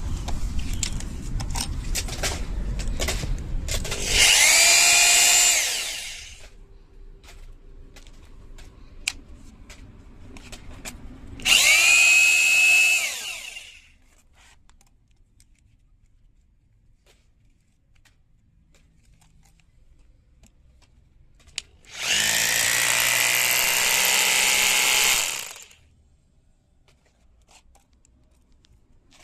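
Bosch GBH2-26RE SDS-plus rotary hammer drill run with no load in three short bursts, two of about two seconds and a longer one of about three seconds. Each burst has a high motor whine that falls away as the motor spins down once the trigger is released. Scattered clicks and handling rumble come before the first run.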